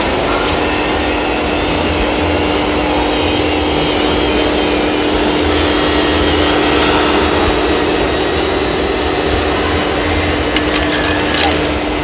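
Steady whirring and whine of a radio-controlled tipper truck model's drive motors and gearing as it manoeuvres on a dirt pile, over a constant hum. A higher whine joins about halfway through, and a few sharp clicks come near the end.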